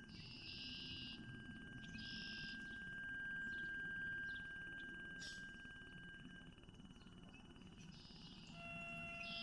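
Battery-powered electronic instrument playing sustained pure tones: one high note held for about six seconds, with short bursts of higher hiss. Near the end a new cluster of several steady tones comes in, all over a low steady rumble.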